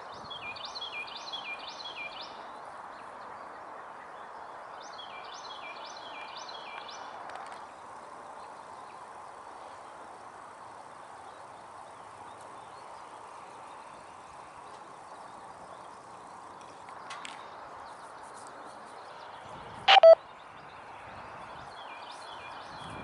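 Steady outdoor background hiss with a songbird singing two short phrases of quick, repeated, falling chirps in the first seven seconds. About twenty seconds in there is one brief, loud burst of noise.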